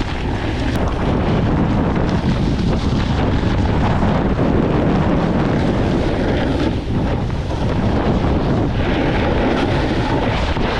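Loud wind buffeting the camera microphone as a snowboarder rides downhill, a steady rushing noise heaviest in the low end.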